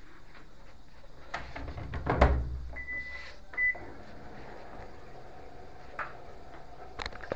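A thump about two seconds in, then two electronic beeps from a Little Swan top-loading washing machine's control panel, a longer one followed by a short one, as the machine is set up for a test run. A faint steady hum follows.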